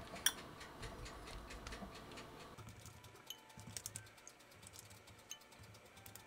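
Light, irregular taps and soft clicks of wet fingers patting water onto rolled salt-bread dough pieces on parchment paper.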